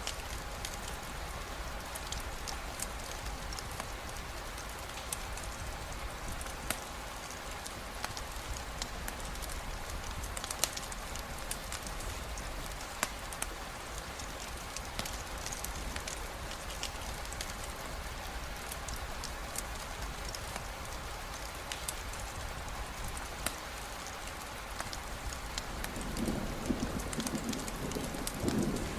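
Steady rainfall with scattered sharp crackles of a campfire. A low rumble of thunder builds near the end.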